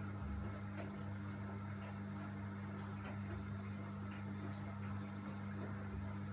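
Washing machine running: a steady low mechanical hum with faint scattered clicks.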